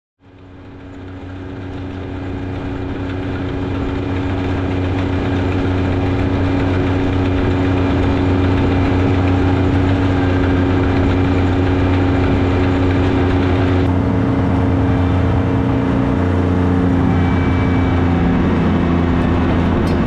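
Lawn mower engine running steadily as the mower drives along, fading in over the first few seconds, with a small shift in its pitch about two-thirds of the way through.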